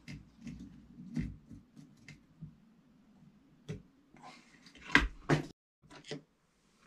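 Small clicks and knocks of tools and wires being handled on a workbench, with a louder clatter about five seconds in, over a faint low hum.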